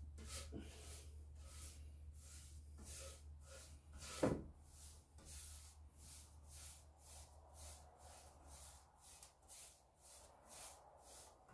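Paintbrush stroking stain onto a wooden board: faint, even swishes about two a second, with one sharper knock about four seconds in.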